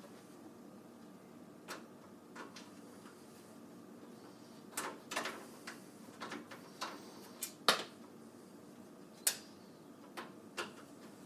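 Scattered light clicks and knocks, about a dozen of them and irregularly spaced, as a case fan is unscrewed and taken out of a PC case. The loudest knock comes a little past the middle.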